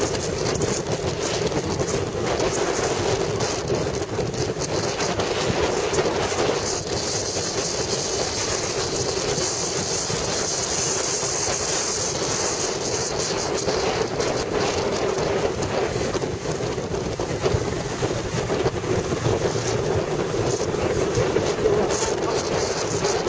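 Motorcycle running at steady road speed, its engine drone mixed with wind rushing over the microphone.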